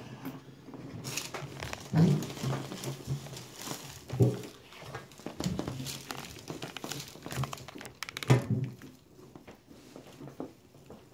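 Crinkling and rustling as a patient is positioned and adjusted on a chiropractic table for a lumbar spine adjustment, with sharp thumps about two, four and eight seconds in.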